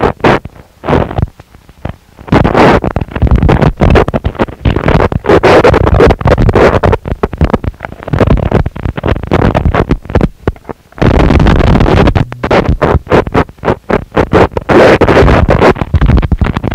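Harsh noise music: loud, heavily distorted noise that stutters and cuts in and out several times a second. It drops out briefly near the start, and a heavier, bass-laden stretch sets in about two-thirds of the way through.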